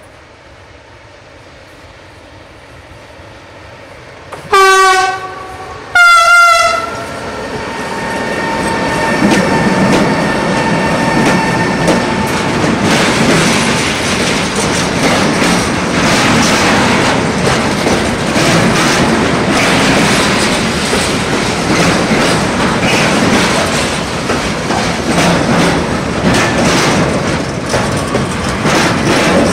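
Siemens Smartron electric locomotive sounding its horn in two short blasts, a lower note then a higher one, as it approaches. Then a freight train of tank wagons rolls past close by: a loud, steady rumble of wheels on rail with repeated clickety-clack over the rail joints.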